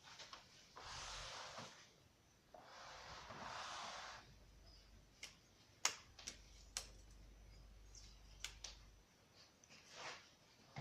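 Two soft hissing rushes, then a handful of sharp, isolated clicks at irregular intervals from the 1939 Triumph Standard 12 manual typewriter's mechanism being handled or its keys pressed.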